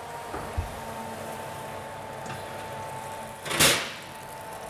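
Falcon range cooker's oven fan humming steadily through the open oven door; about three and a half seconds in, a brief loud clunk as a baking dish is drawn off the oven shelf.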